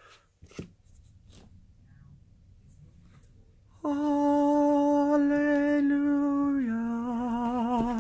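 A few faint clicks and rustles of the gig case being handled. Then a voice sings one long held 'aah' note, steps down to a lower note with vibrato, and cuts off near the end: a mock heavenly-choir fanfare as the guitar is revealed.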